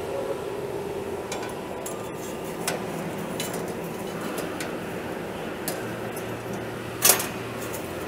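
Steel band saw blade being handled and fitted onto the sawmill's band wheels: scattered light metallic clicks and one sharp clank about seven seconds in, over a steady workshop hum.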